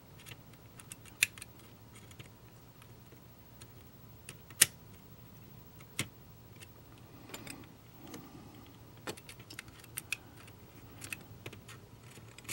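Scattered small clicks and taps of pliers and a tiny metal eyelet against the plastic body of a model passenger car as the eyelet is worked into a punched hole. The sharpest clicks come about a second in, near the middle, and at six seconds, with a run of lighter ticks later on.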